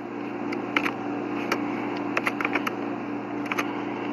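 Irregular clicks of typing on a laptop keyboard, some in quick pairs, over a steady low hum.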